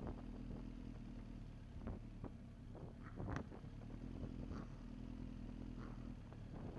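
Vehicle engine running steadily on the move, with scattered knocks and clicks, the loudest about halfway through.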